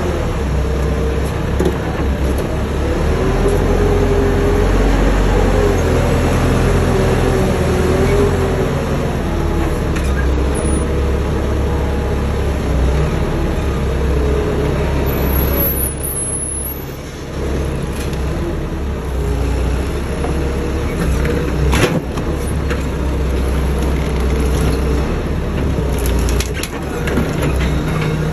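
Heavy machine's engine running steadily while its hydraulic boom is worked, with a wavering whine over the engine during the first several seconds. A single sharp knock about two-thirds of the way through.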